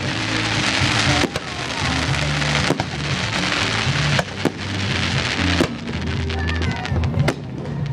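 Fireworks display seen up close: dense crackling from bursting shells, thinning after about six seconds, with about six sharp bangs. Music plays underneath.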